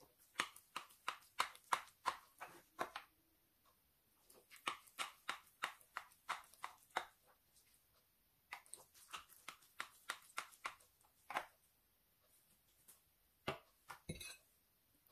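A metal knife blade chopping and tapping quickly into a sticky rice cake, clicking against the bottom of a ceramic baking dish, in three runs of strokes about four a second. Near the end come a couple of louder knocks.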